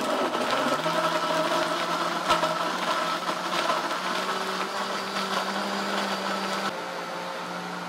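Countertop blender motor running steadily at full speed, blending a creamy mix of orange and lemon juice, condensed milk, powdered milk and ice. It eases off a little near the end.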